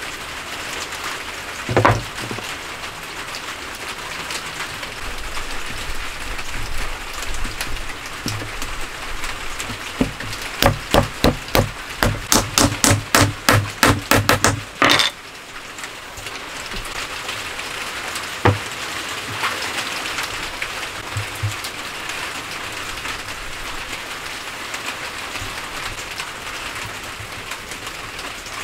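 Wooden mortise-and-tenon corner joint being knocked together: one knock, then a run of about twenty sharp knocks that quickens to about four a second before stopping, then one more knock. A steady hiss like rain runs under it.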